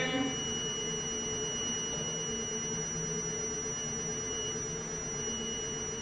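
A 3M carbon monoxide monitor's audible alarm sounds as one continuous high-pitched tone. It is tripped because the 95 ppm calibration gas holds the reading far above the 10 ppm alarm setpoint.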